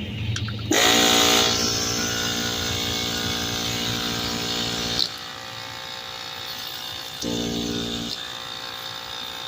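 Land Rover LR3/LR4 air suspension compressor's electric motor switching on under power, spinning up quickly to a steady pitched hum. About five seconds in it drops noticeably quieter, then runs louder again for about a second near the end.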